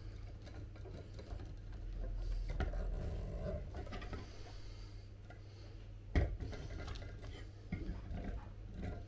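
Clicks and rubbing from handling and fitting the parts of an IKEA Olov metal table leg, with one sharp knock about six seconds in.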